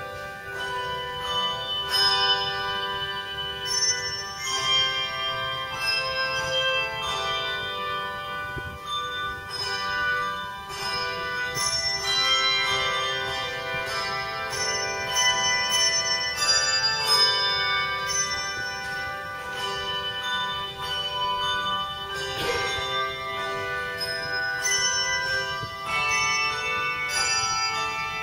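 Handbell choir playing a piece, many struck bell notes ringing and overlapping as they sustain.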